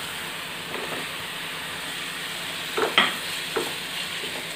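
Sliced onions, tomatoes and green chillies sizzling steadily in coconut oil in a frying pan, with a wooden spatula stirring and knocking against the pan a few times about three seconds in.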